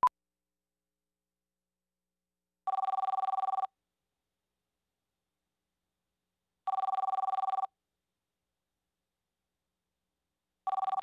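Telephone ringing: three trilling rings about a second long, four seconds apart, the last cut short near the end. A single sharp click, the loudest sound, comes right at the start.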